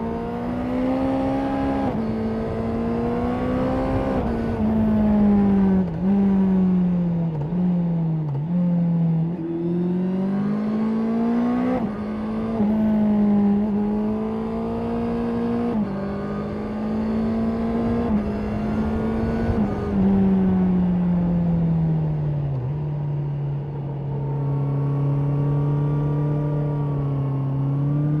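Honda CB650R inline-four engine and exhaust under way, its pitch climbing and sliding repeatedly with several abrupt steps. For the last few seconds it holds a steady, lower note.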